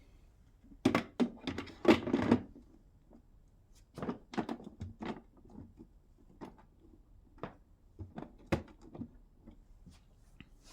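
Plastic water tank being slid back into a dehumidifier: a cluster of knocks and clunks about a second in, lighter knocks a few seconds later, and a single sharp click past the middle.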